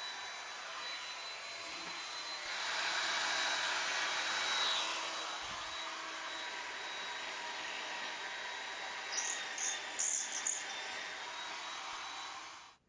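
A small electric motor running steadily with a high whine, louder for a couple of seconds about two and a half seconds in, with a few sharp ticks near the end before it cuts off suddenly.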